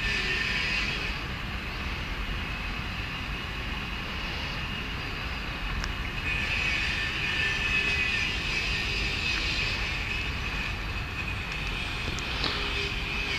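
Steady outdoor background rumble and hiss with no distinct single event.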